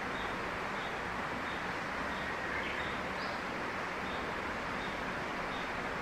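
Steady rush of flowing stream water, with faint high chirps from a small bird repeating about every two-thirds of a second.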